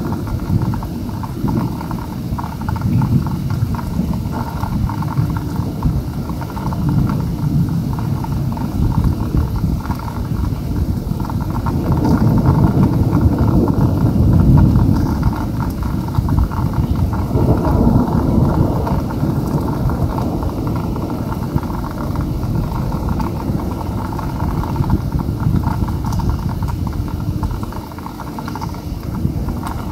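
Heavy rain falling steadily, a dense rushing noise that swells a little about twelve seconds in.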